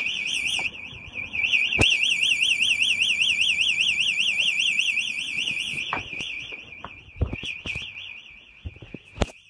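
Burglar alarm's external siren sounding during an engineer's siren test: a loud, fast-warbling electronic wail. It grows quieter in the second half, with a few sharp clicks.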